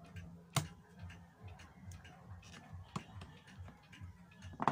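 Several pendulum clocks ticking out of step with one another. Three sharper clicks, about half a second in, near three seconds and near the end, come from a C-clip being worked off a turntable's idler-wheel shaft.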